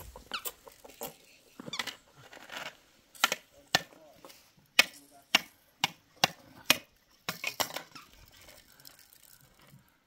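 A series of sharp, irregular knocks, about a dozen over five seconds, with a few short bird calls near the start.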